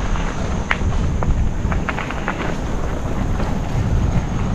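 Mountain bike riding a dirt trail: a steady low rumble of wind on the microphone and tyres, with a few sharp clicks and rattles about one and two seconds in.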